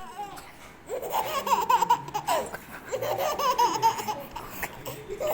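Small baby laughing in two high-pitched bouts, each just over a second long, one about a second in and one about three seconds in.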